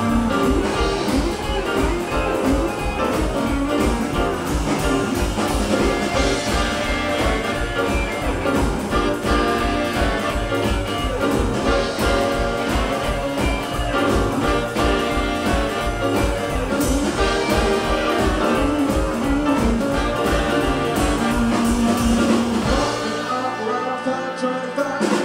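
Small jazz-blues band playing live, with upright bass, hollow-body electric guitar, Hammond organ, trumpet and saxophone over a steady bass beat. The low bass beat drops away about three seconds before the end.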